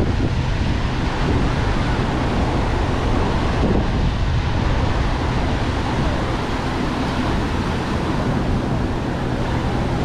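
Ocean surf breaking and washing up the beach, with wind buffeting the microphone.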